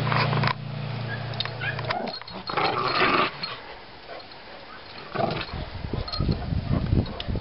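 Dogs at play: a sharp bark or yelp about three seconds in, then rough, rumbling play-growling from a white patched dog and a small black curly-coated dog tussling. A steady low hum runs under the first two seconds and then stops.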